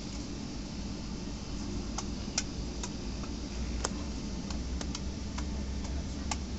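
Low, steady cabin rumble of a Boeing 757-28A taxiing, with a scattered run of sharp clicks and ticks from about two seconds in.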